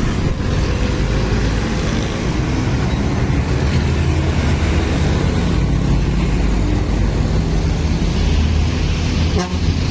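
Mercedes-Benz OF-1623 RF bus's front-mounted diesel engine running steadily as the bus drives past and away, amid street traffic noise.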